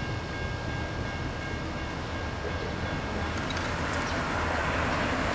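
Steady low rumble of a distant approaching Amtrak train led by an ALC-42 locomotive, with faint steady high tones, growing a little louder over the last couple of seconds.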